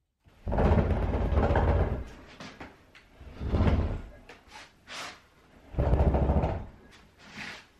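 Shimpo Whisper-T pottery wheel being shoved across wooden floorboards in three pushes, each a low scraping rumble, the first and longest lasting nearly two seconds, with lighter scuffs in between.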